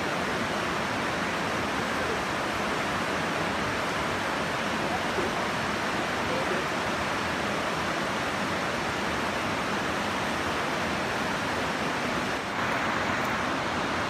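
Steady rushing of the river and waterfall water in the gorge, an even roar with no breaks.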